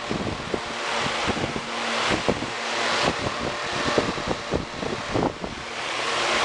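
Solar table fan running, its airflow buffeting the microphone in uneven gusts over a steady rushing hiss.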